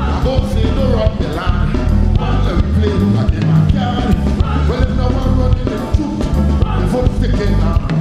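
Live calypso band playing an upbeat number with a steady beat on drums and bass, with a singer's voice over it.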